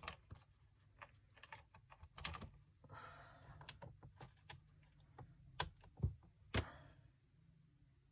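Irregular small clicks and taps of wire ends being fitted to the terminals of a Science Mad Circuit Lab electronics kit board, the loudest two about six seconds in.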